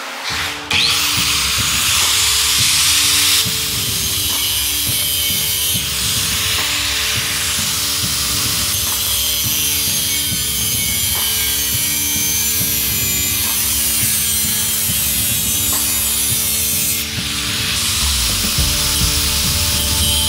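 Angle grinder with a thin cut-off wheel cutting through a metal exhaust pipe, a loud, steady grinding hiss. It starts abruptly just under a second in and eases off briefly about three seconds before the end.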